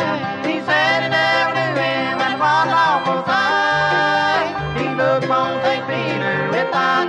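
Bluegrass band playing a gospel number: banjo, fiddle, mandolin, guitar and bass, from a 1960s vinyl record.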